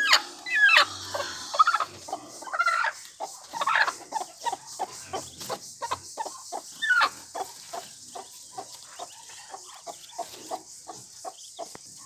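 Domestic hen clucking over and over in short calls, about two or three a second, with a few louder, higher calls among them.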